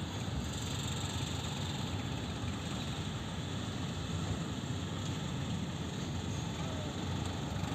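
Combine harvester running steadily as it works the field, a continuous low engine and machinery drone.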